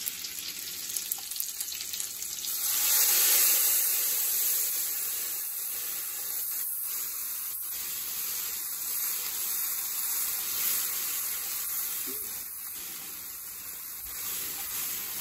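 Fresh coconut milk poured into hot oil and red curry paste in a kadai, sizzling; the sizzle swells about two to three seconds in, then settles into a steady sizzle that slowly fades as it is stirred with a wooden spoon, with a few faint knocks of the spoon.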